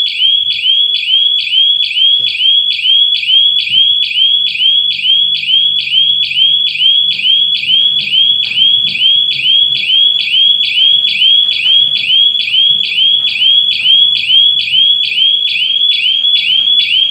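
Triggered burglar alarm siren sounding: a loud, high-pitched electronic chirp repeating evenly about two to three times a second, the alarm state after a detected security breach.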